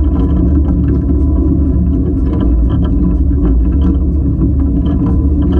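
Running gear of the steam locomotive Spreewald rolling along the track, heard from close beside the driving wheels: a loud, steady rumble with many small irregular clicks and knocks.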